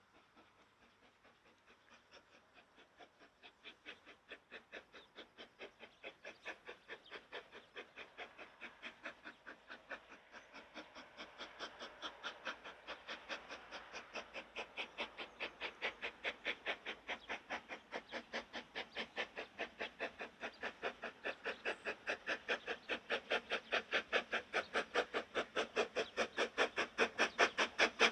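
Exhaust beats of a two-cylinder narrow-gauge steam tank locomotive working a train, an even chuff at about four to five beats a second. The beats start faint and grow steadily louder as the engine approaches.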